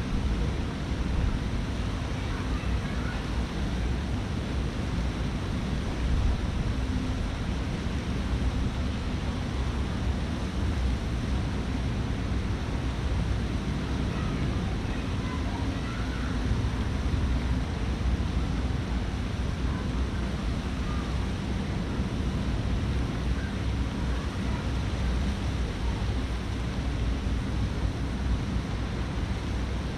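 Steady rushing ambient noise, heaviest in the low rumble, with a few faint brief high sounds now and then.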